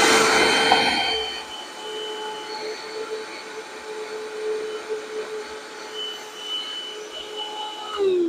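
Hercules 20V cordless half-gallon wet/dry vacuum running with a steady motor whine while sucking water out of a glass measuring cup. There is a louder rush of water and air for about the first second, then the whine steadies. Near the end it is switched off and the whine falls in pitch as the motor spins down.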